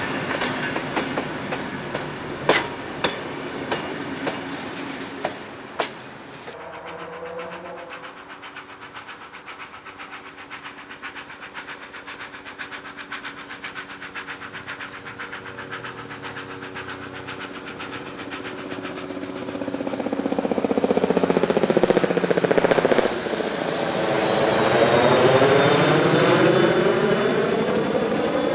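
Heritage passenger carriages rolling over rail joints, with a clickety-clack of sharp wheel clicks. About six seconds in this gives way to a steady engine drone that grows loud late on, its pitch sweeping down and then back up as the source passes.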